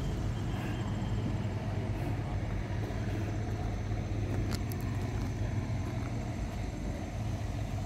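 Steady low rumble of a running engine, even throughout, with a faint click about four and a half seconds in.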